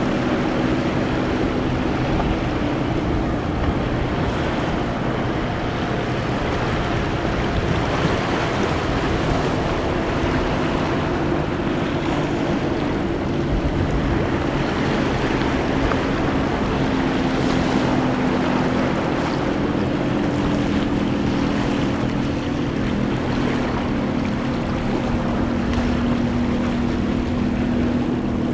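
Small waves washing over a rocky, seaweed-covered shore, with the steady drone of a motorboat engine running under it throughout; the engine's pitch shifts slightly about halfway through.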